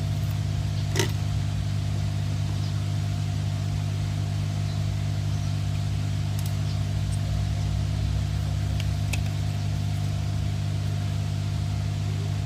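A steady low mechanical hum from running bench equipment, with a few faint clicks of small phone parts being handled about one, six and a half and nine seconds in.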